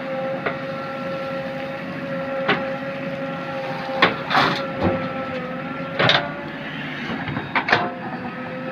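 JCB backhoe loader running steadily with a constant whine, and about half a dozen sharp knocks and clanks of metal as it works, the loudest around the middle and near the end.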